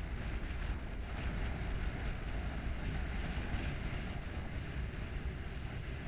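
Wind buffeting the camera's microphone: a steady low rumble with a hiss of moving air over it, the hiss growing a little stronger about a second in.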